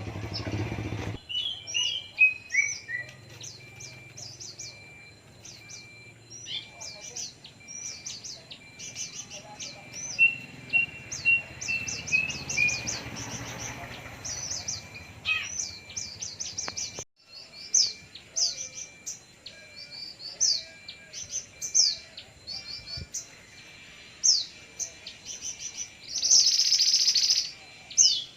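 Female oriental magpie-robin (mantenan) singing in long runs of quick, high chirps and short whistled notes, with a loud harsh, raspy call about 26 seconds in.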